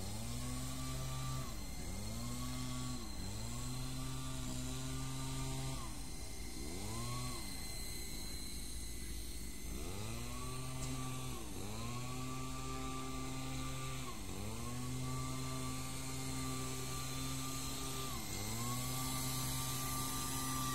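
Esky Lama V4 coaxial RC helicopter's electric motors and rotors whining steadily. The pitch dips and climbs back again every couple of seconds as the throttle is eased and reapplied. It drops low for a few seconds about six seconds in, then spins back up near the ten-second mark.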